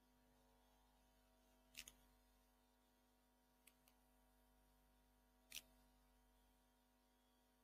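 Near silence: a faint steady hum with a few faint clicks. There is a double click about two seconds in, a weaker pair near the middle and a single sharper click about three quarters of the way through.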